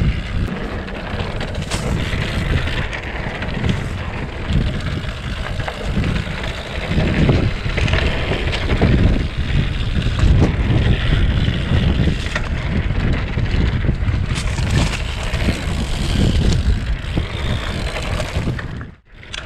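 Wind buffeting the microphone over the rattle and tyre rumble of a bicycle riding an off-road trail: a loud, rough rumble with uneven surges. The sound drops out briefly near the end.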